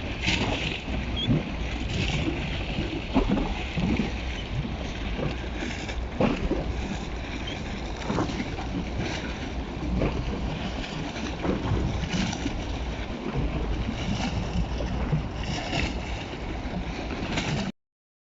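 Wind rumbling on the microphone over a steady outdoor noise, with scattered small knocks; it cuts off suddenly near the end.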